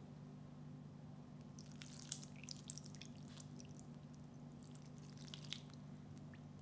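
Hot coffee poured into thick chocolate cake batter in a glass bowl: faint wet dripping and splattering, in two spells, over a steady low hum.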